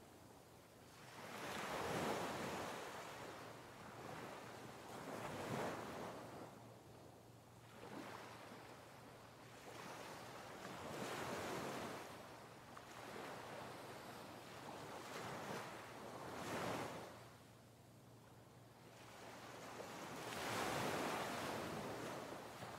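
A rushing ambient noise that swells and fades every few seconds, in slow surges like surf washing in and drawing back.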